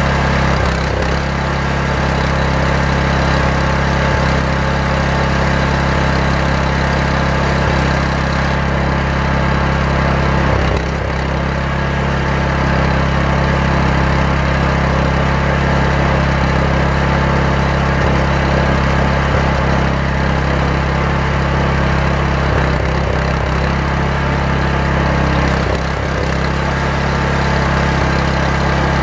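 Engine running steadily at an even speed, with no rise or fall, from the setup for a circular saw table about to rip logs into 1.5×4-inch timbers.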